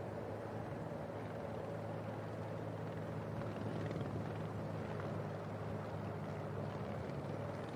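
Steady drone of a helicopter's engine and rotor.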